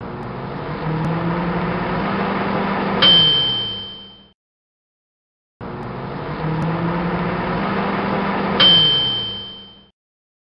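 Microwave oven running with a steady hum, then its bell dings once as the hum drops in pitch and fades out. The cycle plays twice, with a short silence between.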